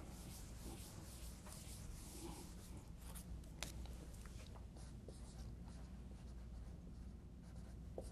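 Faint scratching of a felt eraser wiping a whiteboard, then a dry-erase marker writing on the board in short strokes, with a couple of sharp clicks a few seconds in.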